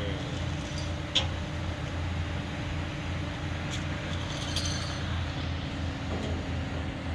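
Propane-fuelled Caterpillar forklift engine running steadily while it holds a steel truck frame on its forks, with a sharp metal clink about a second in and light metallic clinking around four seconds in.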